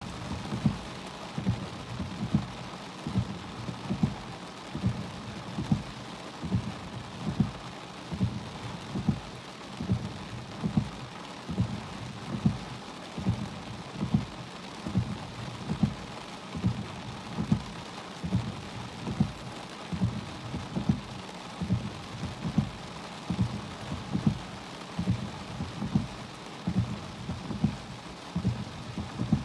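Rain beating on a car, heard from inside the cabin, as the windshield wipers sweep back and forth. A steady hiss runs under low thumps a little more than once a second.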